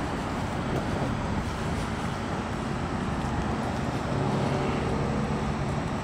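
Steady low rumble of distant city traffic with wind noise on the microphone, and a low engine hum joining in for a second or so about four seconds in.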